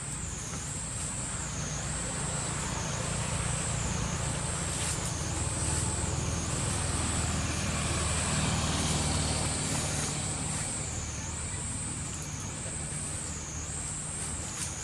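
A passing motor vehicle's low engine rumble, growing louder about a third of the way in and easing off again, under a high insect drone that swells and dips about once a second.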